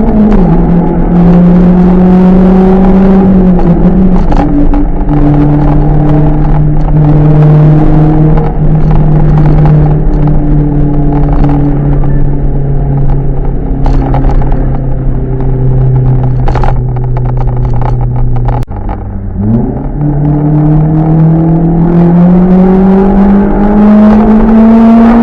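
Loud exhaust drone of a car fitted with a one-off RS-R silencer with rear exit, under way. The engine note steps down near the start and holds steady for a long stretch. About three-quarters through it dips briefly as the throttle lifts, then rises steadily as the car accelerates.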